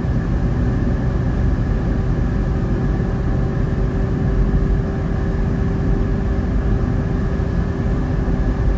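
Steady road and engine noise inside a moving car's cabin: a constant low rumble with a faint steady hum.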